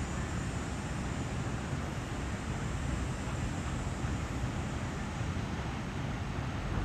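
Wind rumbling steadily on the microphone, an even low noise with no distinct events.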